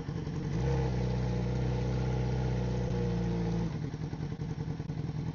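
Yamaha XJ6 motorcycle's inline-four engine running. Its note steps up about half a second in, holds steady, then drops back lower and quieter a little before the four-second mark.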